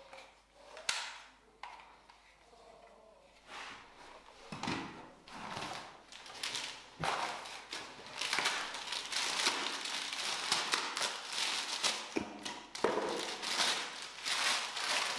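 A few knocks and taps of handling parts in cardboard packaging, then white packing paper being pulled off and crumpled around a cordless vacuum's metal extension tube: continuous rustling and crinkling through the second half.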